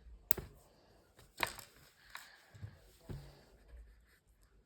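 Small plastic Lego minifigure parts being handled and pressed together, with two sharp clicks, one just after the start and a louder one about a second and a half in, then softer ticks and rustling.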